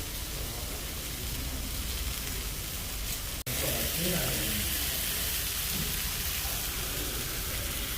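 Food sizzling with a steady hiss. The sound drops out for a moment about three and a half seconds in, then resumes.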